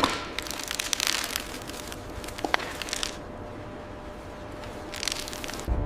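Scattered crackling and crunching clicks as explosive charges are set in the rock. Just before the end a deep, loud rumble of the blast begins.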